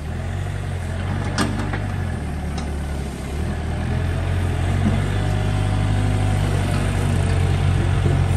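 Mitsubishi ME30 mini excavator's diesel engine running steadily as the boom and bucket are worked on the hydraulics, with two short knocks in the first few seconds. The engine gets a little louder from about four seconds in.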